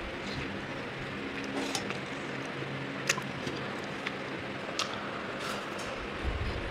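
A person eating chicken up close to the microphone: mouth and chewing noises with a few short sharp smacks, over steady background hiss and hum.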